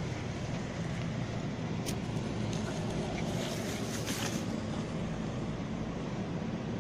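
Steady road-traffic noise with a low engine hum, and a few brief rustles about two and four seconds in.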